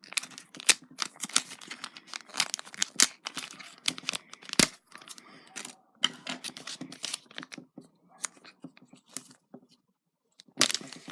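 Plastic packaging of a fingerboard pack being handled and opened: irregular crinkling and sharp crackles, stopping briefly near the end.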